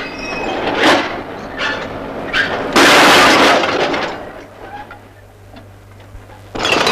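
Broken glass bottles crashing and rattling as they are dumped onto a heap. There are a few short crashes, then a long loud cascade about three seconds in that dies away. Another continuous pour of glass starts near the end.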